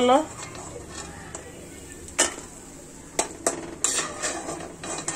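Metal kitchen utensils clinking against dishware: about six short, sharp clinks spread out irregularly over the last three seconds.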